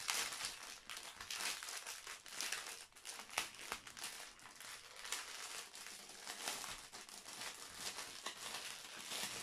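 Plastic crinkling and rustling as plastic film and a strip of small plastic bags of diamond-painting drills are handled and pressed, with many small crackles and clicks throughout.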